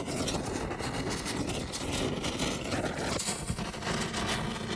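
Intro sound effect: a dense, steady crackling noise with a low rumble, its tone shifting about three seconds in.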